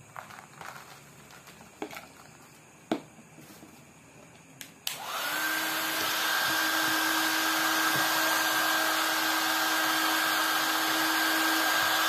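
A few light clicks and knocks of plastic being handled, then about five seconds in a handheld hair dryer, pushed into a plastic bottle as a makeshift vacuum cleaner, switches on and runs steadily with a whine over its rushing air.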